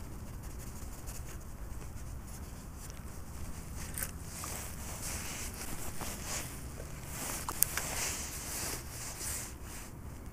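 Handling noise from a spinning rod and reel and the angler's jacket: irregular scratchy rustling through the middle, with one sharp click late on, over a low steady rumble.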